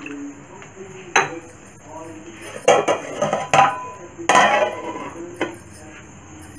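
Metal spoon clanking against an aluminium kadai as the chicken curry is stirred, then an aluminium plate set over the pan as a lid with a clank. There are several sharp clinks a second or so apart.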